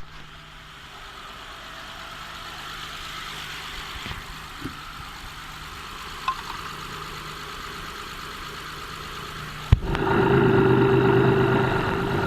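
Honda J35A9 V6 engine idling, with a noise from its timing-belt drive that the owner suspects comes from the water pump or the belt tensioner pulley. The sound becomes abruptly much louder about ten seconds in.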